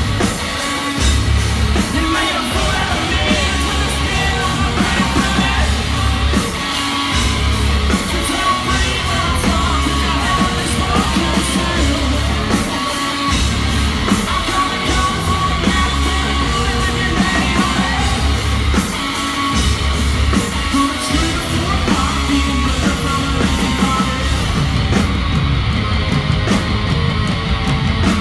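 Loud live heavy rock from a two-piece band: a heavily distorted bass guitar riff over pounding drums, with a shouted vocal.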